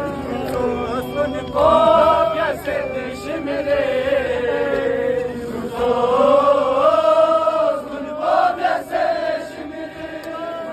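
Noha, a Shia Muharram mourning lament, chanted in long held lines that waver up and down in pitch, with short breaths between phrases.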